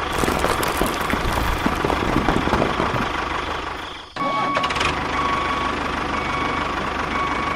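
An engine running steadily with a low pulsing rumble; the sound briefly drops out about four seconds in and then picks up again, with a faint thin tone over it in the second half.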